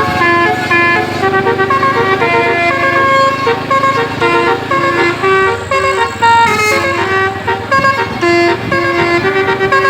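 A bus's basuri telolet horn, a set of multi-note air horns, playing a tune of short held notes that change two or three times a second, over a steady low drone that fades about halfway through.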